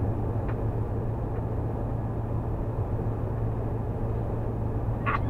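Steady road and engine drone inside the cab of a motorhome cruising at highway speed, with a constant low hum.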